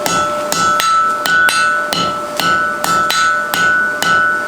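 Hand hammer striking a mild steel collar on a round bar over the anvil, about two blows a second, closing the collar tight around the bar. The steel rings after each blow.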